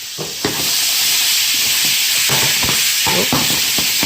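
Peeled shrimp going into a hot pan of olive oil and garlic: the sizzle gets suddenly louder about half a second in and keeps going, with scattered knocks of shrimp and utensil against the pan.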